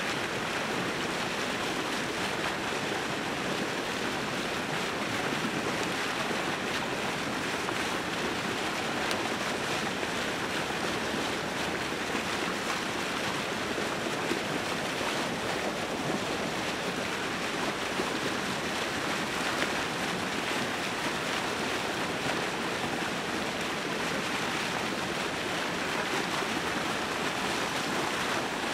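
Hooked rainbow trout thrashing at the water's surface, a steady rush of splashing water.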